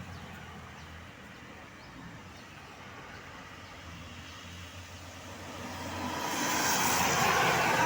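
Road traffic on a hill: a low steady engine hum, then a vehicle approaching, its engine and tyre noise growing steadily louder over the last two seconds or so.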